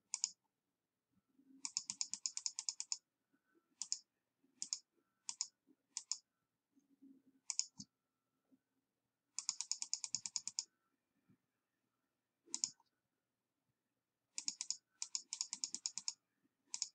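Computer mouse button clicked in quick runs of about eight clicks a second, with single clicks between the runs.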